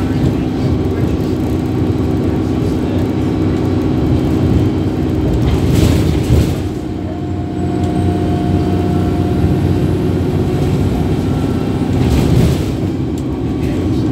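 Inside a moving bus: the engine drones steadily under road and body noise. There are brief louder rushes of noise about six and twelve seconds in, and a short dip in level just after the first.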